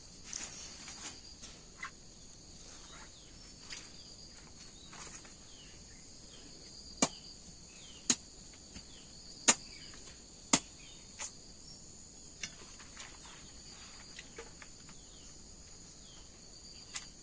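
Steady high chirring of an insect chorus, with about four sharp knocks about a second apart midway and a few fainter clicks, from a blade chopping pumpkin.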